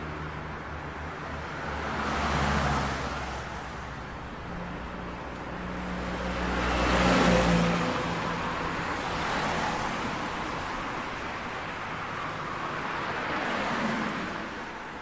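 City street traffic: cars passing by one after another in swells, the loudest about halfway through, over a low engine hum that stops about halfway.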